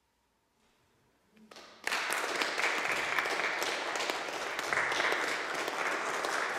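Near silence at first, then a few scattered claps about a second and a half in, and just after that an audience starts applauding steadily.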